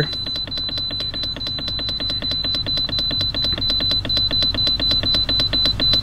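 BougeRV 12V fridge/freezer's control-panel beeper giving rapid, even high beeps, about four a second, while the minus button is held down. Each beep marks one step of the set temperature down toward its −8°F minimum.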